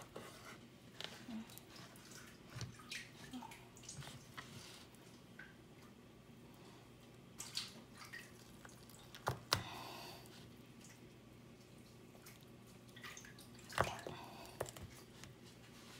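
Chef's knife cutting through a firm, chilled block of dough on a cutting board: soft scattered cuts with a few sharper knocks of the blade meeting the board, the loudest a pair about nine and a half seconds in and another near fourteen seconds.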